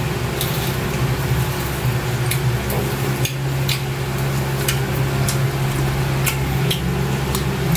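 People eating grilled chicken with their hands: chewing and lip smacks, heard as short clicks every second or so, over a steady low hum.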